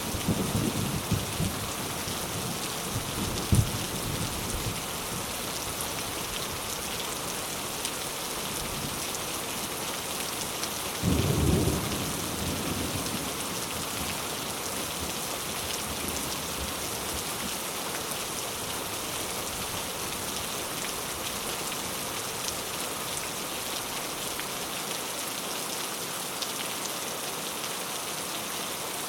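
Steady heavy rain falling, with low rolls of thunder in the first few seconds, a short sharp clap a few seconds in, and another roll about eleven seconds in.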